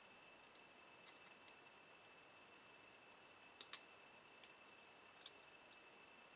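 Near silence with faint clicks of a small plastic piece being handled and pressed against a circuit board: a quick double click a little past halfway and a couple of lighter ticks after it, over a faint steady high whine.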